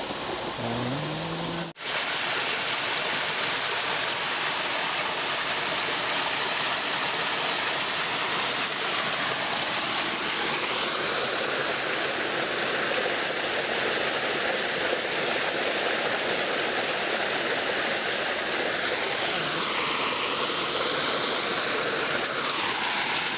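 Water of a waterfall pouring and splashing in a steady, loud rush that starts abruptly about two seconds in.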